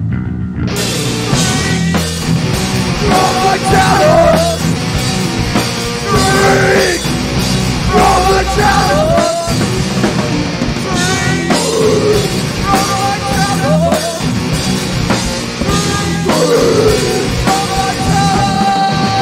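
Loud rock music with a drum kit beat and melodic lines that bend in pitch.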